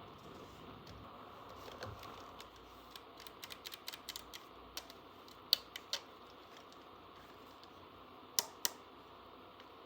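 Small plastic toy tool-set pieces being handled: scattered light clicks and taps, with two sharper clicks close together about five and a half seconds in and again near the end.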